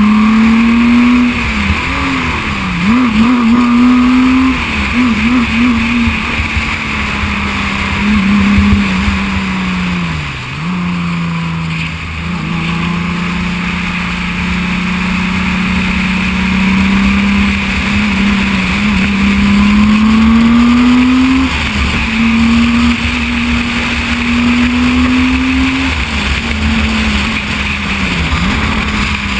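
Reynard single-seater race car's 3.5-litre V6 engine heard on board while driving, its note rising and falling with throttle and gear changes. The pitch wobbles quickly a few seconds in, then drops sharply about ten seconds in and again near the end.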